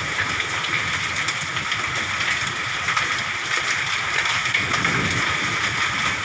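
Heavy hail and rain falling on and into a house whose roof tiles have blown off. It is a steady, dense hiss with scattered small impacts.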